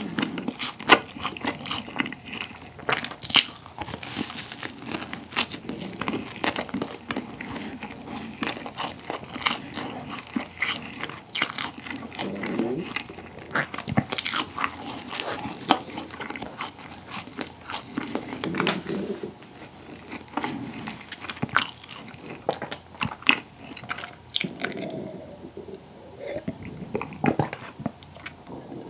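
Close-miked biting and chewing of a crusty pollock roe baguette: many sharp crackling crunches of crust, with softer wet chewing sounds between them. The crunching thins out near the end as a drink is taken.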